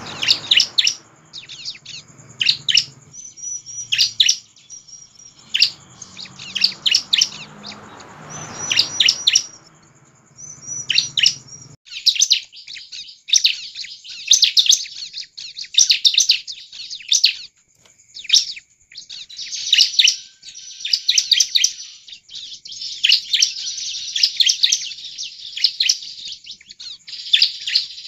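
Bar-winged prinia (ciblek) singing without pause: rapid bursts of high, sharp chirps with brief gaps between phrases. A low background noise under the song cuts off suddenly about twelve seconds in.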